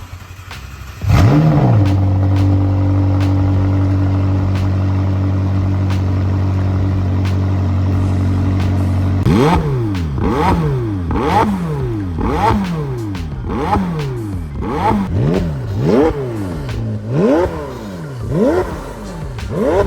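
McLaren 720S twin-turbo V8 through a Fabspeed LT Style exhaust: it fires up with a flare about a second in, then idles steadily. From about halfway through it is blipped again and again, roughly one rev a second, the note rising and falling with each rev.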